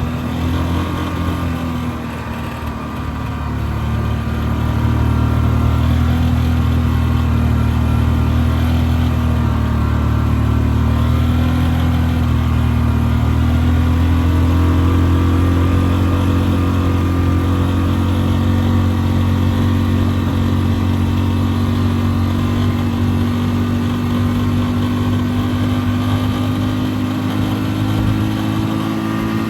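2006 Yamaha Rhino 450's single-cylinder four-stroke engine running under way, getting louder about four seconds in, with its note slowly climbing in pitch over the second half. The engine has a knock that thicker-weight oil has softened but not cured.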